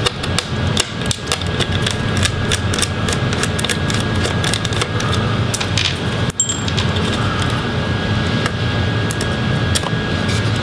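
Small screwdriver clicking and tapping on tiny screws and the laptop's metal and plastic parts as the optical drive board is unscrewed and lifted out, many light clicks over a steady room hum.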